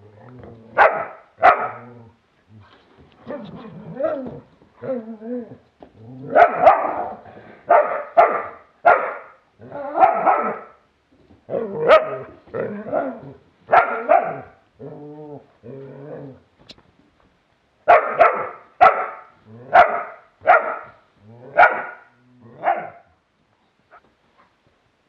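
Galgo and sloughi sighthounds barking over and over while play-fighting, in clusters of short sharp barks with a few longer, lower calls between them. The barking stops shortly before the end.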